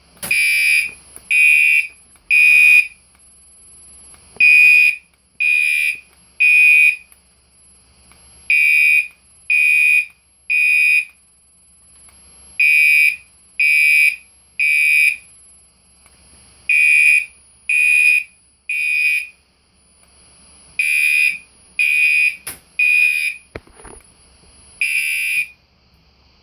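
Gentex Commander 4 fire alarm horn sounding the code-3 temporal pattern on its low-volume electromechanical tone: three harsh half-second blasts about a second apart, then a pause, repeated over and over, quite loud. A faint steady high-pitched whine runs beneath.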